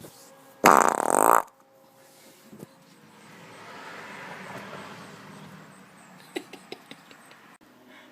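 A loud, buzzing human fart lasting under a second, about half a second in. Afterwards a faint hiss swells and fades, and a few soft clicks follow near the end.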